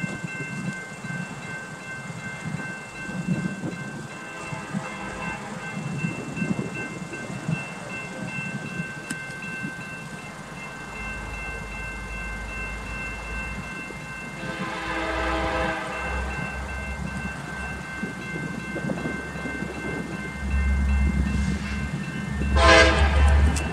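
Horn of an approaching EMD SD70ACe diesel locomotive sounding for a grade crossing, three blasts: a faint one about four seconds in, a longer one around the middle, and a short, louder one near the end as the train nears. The low diesel rumble grows in the second half, and the crossing bell rings steadily throughout.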